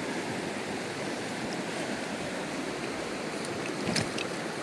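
Trout stream water rushing steadily over rocks, with a light click or two about four seconds in.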